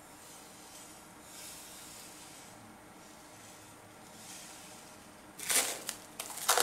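Granulated sugar poured from a bowl, hissing softly as it falls onto pumpkin pieces. About five seconds in, plastic cling film is pulled off its roll with a loud crackling rustle.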